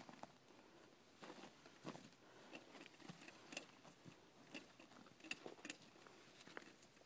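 Faint rustling with scattered small crackles and clicks, the sound of people shifting and handling gear close to the microphone.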